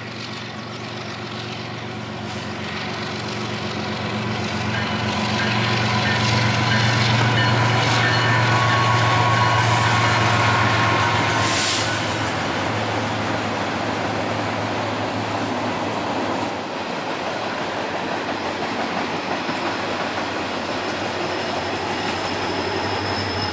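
A diesel-hauled freight train passing: the locomotives' engines drone loudly through the first half, then the drone fades and the steady rolling of the tank cars and hoppers over the rails carries on.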